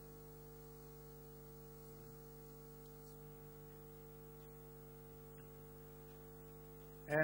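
Low, steady electrical hum, an unchanging drone of several steady tones. A man's voice starts right at the end.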